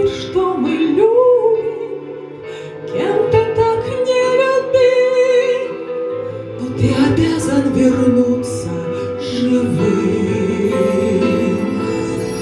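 A woman singing long held notes over a musical backing.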